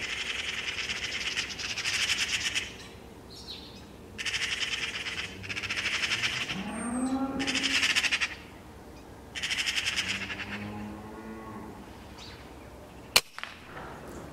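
Magpies chattering in about five harsh rattling bursts, with a cow mooing twice in between. About a second before the end comes a single sharp air-rifle shot, the loudest sound, as the magpie on the post is hit.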